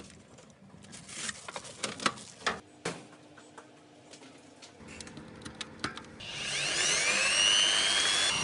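A few seconds of handling knocks and clatter, then a small electric motor starts about six seconds in, its whine rising in pitch as it spins up and then running steadily and loudly.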